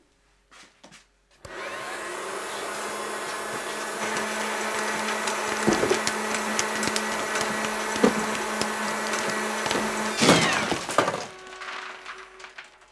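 A small electric kitchen appliance starts suddenly and runs with a steady motor hum and rattling as it throws its contents out of the top. There is a louder clatter about ten seconds in, and then it runs down as it is unplugged near the end.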